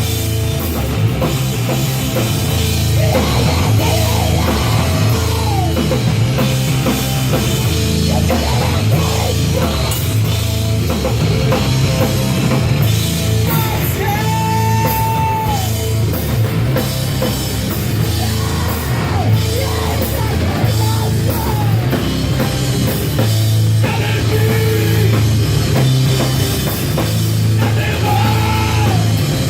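A heavy rock band playing loud and live, with the drum kit driving. A long held high note comes back about every fourteen seconds.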